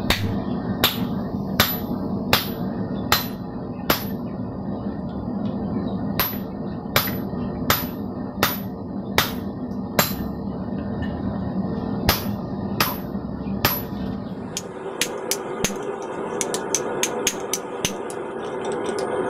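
Hand hammer striking a handheld slitter driven into hot 1050 steel on an anvil, slitting the eye of a hammer head: steady ringing blows about one every three-quarters of a second, with a short break after about four seconds. Near the end the blows turn quicker and lighter.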